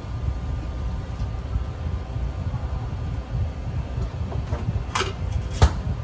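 Steady low rumble of kitchen machinery, with two sharp clicks near the end, the second louder.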